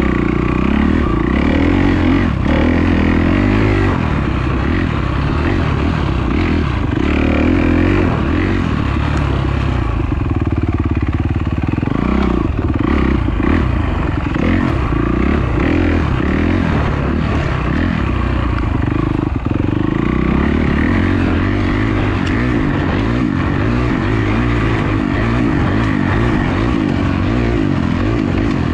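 Dirt bike engine running hard, its pitch rising and falling with the throttle. Knocks and rattles come from the bike going over rough trail.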